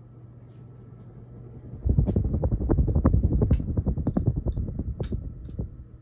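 ERS American Art Series ceiling fan running with a low steady motor hum. About two seconds in, the draught from its spinning blades hits the microphone close under the fan as a loud, rapidly fluttering wind rumble, which eases off near the end.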